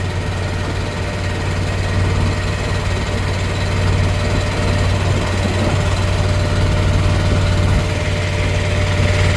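Boat engine running steadily, a low, even hum heard from aboard the moving boat.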